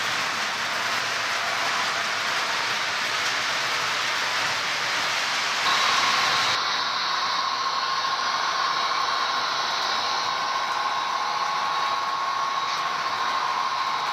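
Model train running along the layout track: a steady whirring hiss from the locomotive and the rolling cars. About six seconds in the hiss thins and a steady whine comes in.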